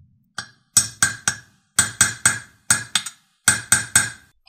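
Brass-headed armorer's hammer tapping a steel roll pin into the forward-assist hole of an AR-15 aluminium upper receiver. There are about a dozen sharp, ringing taps, mostly in quick groups of three. This is the roll pin being started partway in.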